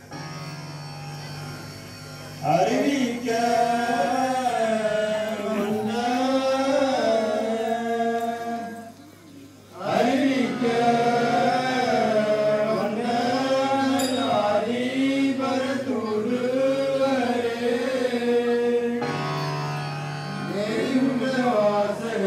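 A voice singing a slow, ornamented melody in long phrases over a steady drone, with a short break about nine seconds in.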